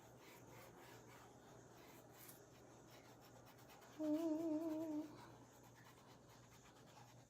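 A woman hums a single wavering, thoughtful "hmm" for about a second, roughly four seconds in. Faint scratching and rubbing can be heard around it.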